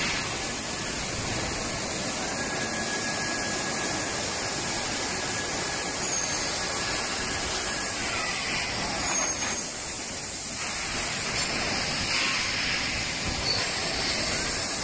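Steady hiss and running noise of a plastic thermoforming machine, with slight changes in the hiss a little past the middle and again near the end.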